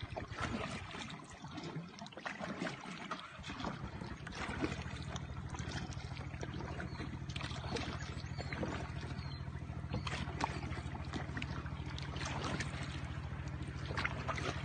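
Kayak paddle strokes in river water: repeated splashes and trickling drips from the blades. From about four seconds in, a steady low hum runs underneath.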